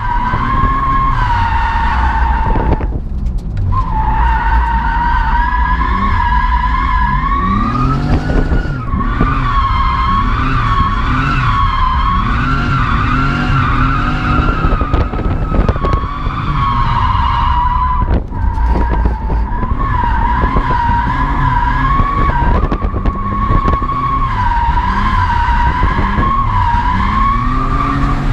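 Car tyres squealing almost without pause as the car slides through turns, the squeal wavering in pitch and breaking off briefly a few times, over the engine revving up and down, heard from inside the cabin.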